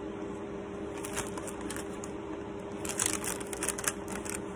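Paper wrapper of a pair of sterile gloves being unfolded by hand, crinkling and rustling now and then, most around three seconds in, over a steady faint hum.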